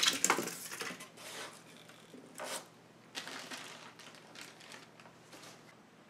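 Styrofoam and cardboard packing being pulled out of a box and handled: a few loud scraping, crunching strokes at the start, then fainter scattered rustles and scrapes.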